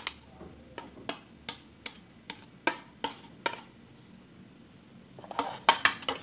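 Spoon tapping and scraping against a plate to knock diced cheese into a glass mixing bowl: about ten sharp taps, roughly three a second. A short burst of clatter near the end as the plate and spoon are set down.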